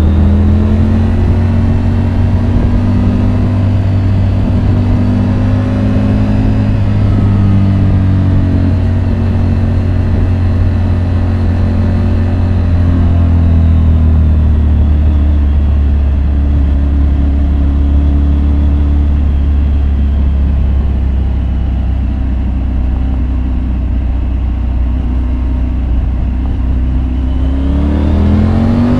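Triumph Tiger 850 Sport's three-cylinder engine running at fairly steady revs on the move, its pitch drifting gently up and down. Near the end the revs climb sharply as the bike accelerates.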